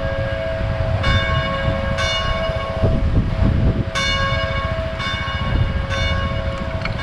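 Bell-like chimes struck about once a second, each note ringing out over a steady held two-note drone, with wind rumbling on the microphone underneath.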